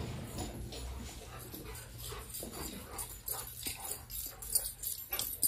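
A dog whimpering, with short sharp clicks and scuffs that come thicker toward the end.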